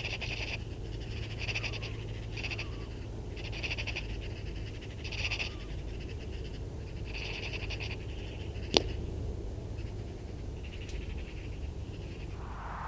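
Eurasian magpies chattering: a series of short, dry rattling calls repeated every second or so. A single sharp click sounds about nine seconds in.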